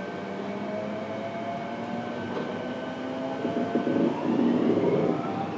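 Fukuoka City Subway 1000N series car running, heard from inside: the drive whine, several tones together, rises steadily in pitch as the train picks up speed. From about three and a half seconds in, wheel-on-rail noise grows louder and rougher.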